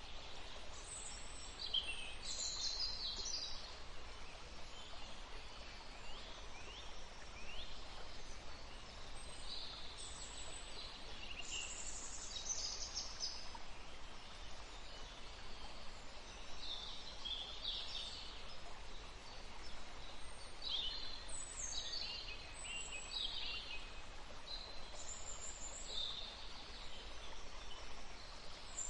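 A woodland stream flowing steadily, with songbirds calling and singing throughout in many short, high chirps and trills.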